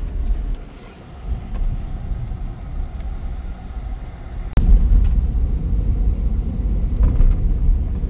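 Hyundai Venue on Yokohama Geolandar A/T G015 tyres driving, heard from inside the cabin as a steady low rumble of engine and road noise. The rumble turns suddenly louder a little past halfway.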